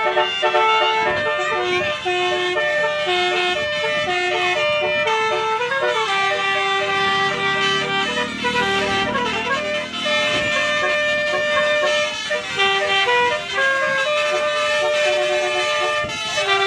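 Indonesian bus's telolet basuri horn playing a tune of held notes that step up and down in pitch, over the sound of road traffic.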